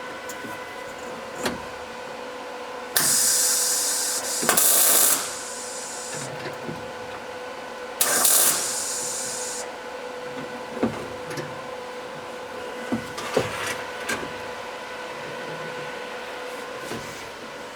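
Two loud bursts of hissing spray, the first about two seconds long and the second about a second and a half, with scattered knocks and clicks of parts being handled in between, over a faint steady hum.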